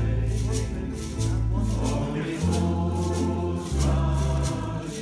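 Ukulele ensemble playing a slow song together, strummed ukuleles over a deep bass line that moves note by note, with group voices singing and a hand shaker ticking out the beat.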